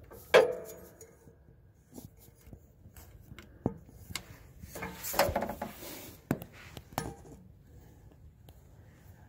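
Metallic clanks, clicks and rattles of hands working among the blower's belt drive parts: one sharp clank with a brief ring about half a second in, scattered clicks, and a run of rattling around the middle.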